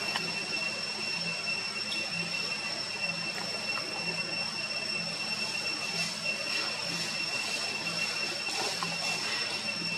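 Steady high-pitched insect drone, such as cicadas, holding one unbroken whine over a background hiss, with a faint low pulse repeating about every 0.7 s.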